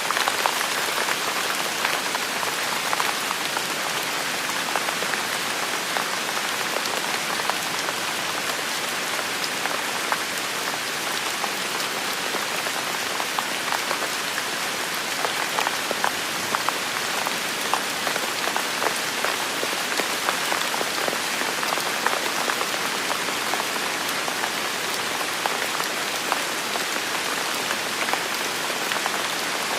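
Steady rain falling and pattering on a surface, an even hiss dotted with many small drop ticks.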